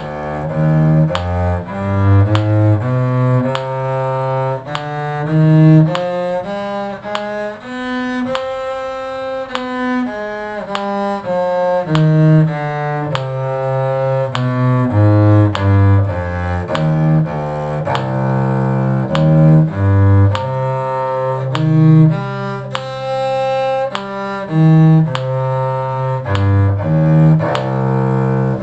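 A group of bowed strings (violins, violas and cellos) playing a two-octave C harmonic minor scale together, one sustained note per beat, climbing to the top about eight seconds in and then coming back down.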